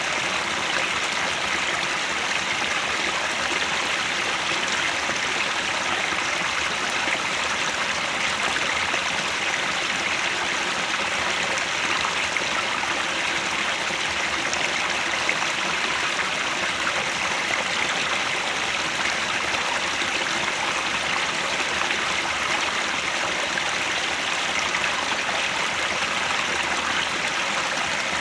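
Mountain headwater stream flowing over rocks, a steady, unbroken rush of water.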